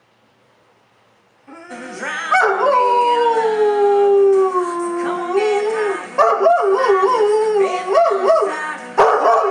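Giant Schnoodle howling. After about a second and a half of quiet comes one long howl that slowly slides down in pitch, then a run of shorter, wavering howls that rise and fall.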